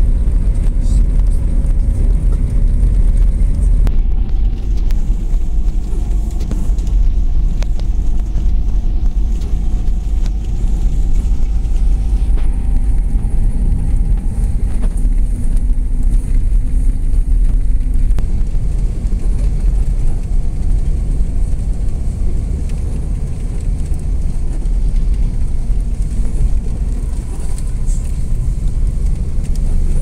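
Car driving over a snow-drifted road, heard from inside the cabin: a steady low rumble of engine and tyres on snow, with a faint whine that drifts slowly upward in pitch for several seconds.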